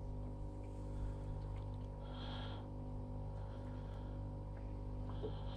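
A steady low mechanical hum with many even overtones, unchanging throughout, with a faint higher-pitched sound about two seconds in.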